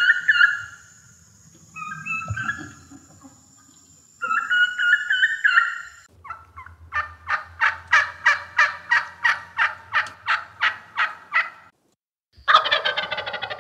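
Wild turkey gobbling: three gobbles in the first six seconds and a loud one near the end. Between them comes a long run of about fourteen evenly spaced yelps, a little over two a second.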